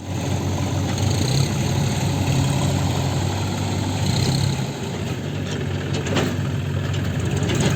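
Heavy diesel engine of a backhoe loader or tractor running steadily, with a short knock about six seconds in.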